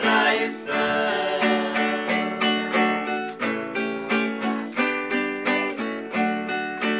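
Acoustic guitar strummed and picked in a steady rhythm, playing an instrumental sertanejo passage between sung lines.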